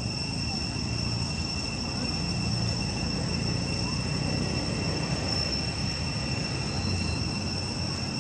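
Steady, unbroken high-pitched drone of insects, with a continuous low rumble of outdoor background noise beneath it.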